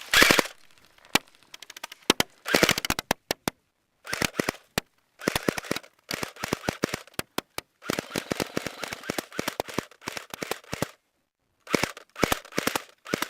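Airsoft rifles firing in rapid bursts: several strings of quick sharp shots, separated by short breaks.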